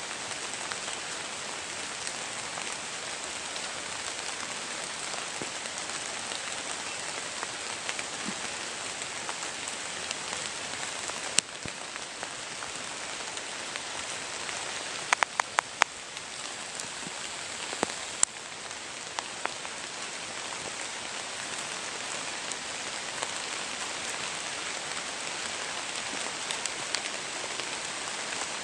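Steady rain falling, an even patter with a few sharp clicks around the middle, one single, then a quick cluster of four or five.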